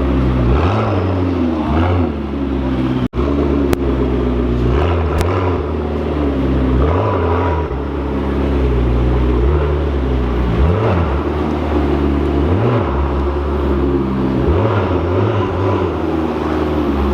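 Car engine idling steadily with several brief blips of the throttle, each a quick rise and fall in pitch.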